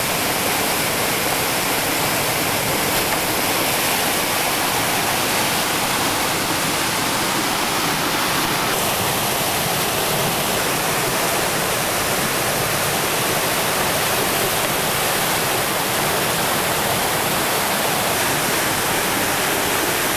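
Whitewater pouring over a rocky drop in a river rapid: a loud, steady rush of falling and churning water.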